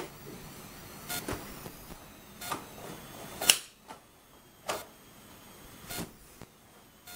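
Barefoot martial artist performing the Naihanchi kata: a sharp crack with each strike and stance change, as the uniform snaps and the feet land on the tile. There are about eight cracks, irregularly spaced a second or so apart, and the loudest comes about three and a half seconds in.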